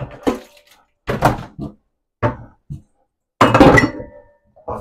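Kitchenware being handled and set down: a few separate knocks and clunks, then the loudest clatter about three and a half seconds in, with a short metallic ring.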